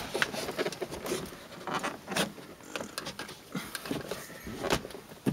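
Irregular small clicks, scrapes and rustles of hands and a flathead screwdriver working fabric-covered pillar trim under the rubber door weather stripping.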